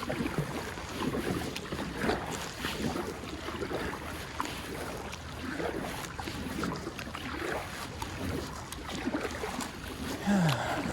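Kayak paddle strokes splashing in shallow river water, with wind on the microphone. A brief falling vocal sound from the paddler comes near the end.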